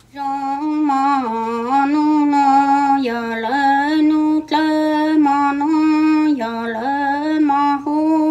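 A woman chanting a Hmong soul-calling (hu plig) in long held notes on a level pitch that steps down to a lower note now and then, with a short break about halfway through.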